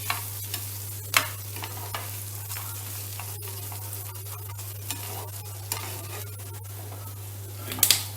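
Chicken and curry leaves sizzling in hot oil in a pan, a steady frying hiss, while a spoon stirs them, scraping and clinking against the pan a few times, loudest near the end. A steady low hum runs underneath.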